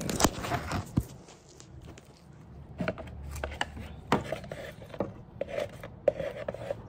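Handling noise: a burst of sharp knocks and clatter in the first second, then scattered light knocks and taps as a plastic mixing cup of fiberglass resin is picked up and tipped.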